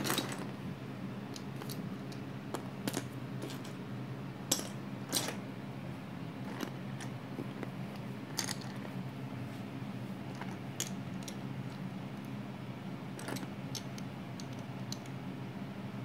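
Loose plastic Lego bricks clicking and clattering on a wooden floor as hands sort through and pick up pieces, in scattered, irregular clicks.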